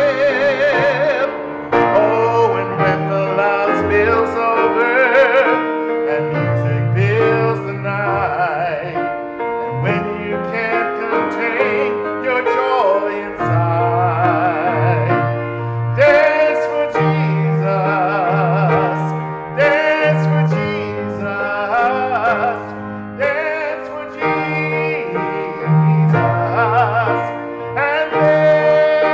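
A man singing a solo with a marked vibrato, accompanied by piano.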